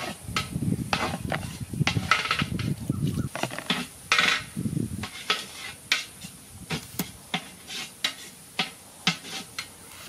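A knife and a steel plate clattering as cleaned quail are handled, then a knife chopping the quail on a wooden log block. The chops come as separate sharp knocks, about two a second, in the second half.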